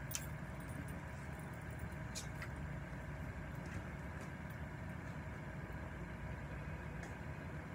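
Steady low mechanical hum, like a motor running, with a few faint clicks as a plastic drink bottle is opened and handled.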